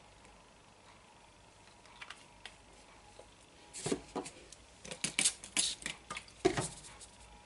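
A quick run of sharp plastic clicks and taps, about a dozen in three seconds and the last one loudest, as small plastic ink-refill and spray bottles are handled and set down on the craft table.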